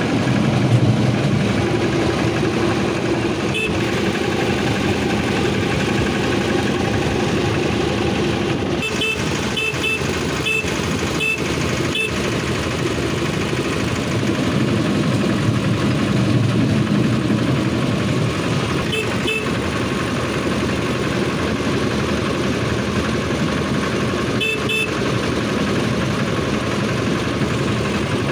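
Railway motor trolley running steadily along the track, its engine and wheel noise constant. Its horn sounds in short beeps in quick clusters, about a third of the way in, again past the middle and again near the end, warning people off the track.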